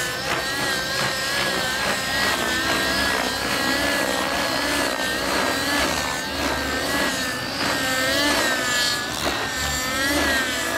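Outrage Velocity 50 nitro RC helicopter in aerobatic flight: its YS glow engine and rotor running steadily, the pitch wavering up and down with each manoeuvre.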